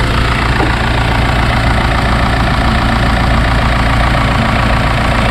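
Modern direct-injection petrol engine idling steadily, with the loud ticking clatter of its injectors and camshaft-driven high-pressure fuel pump. The noise is normal operation, not a fault.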